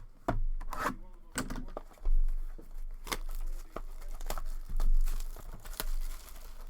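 Wrapping on a trading card box being torn open and crinkled, in an irregular string of sharp rips and crackles.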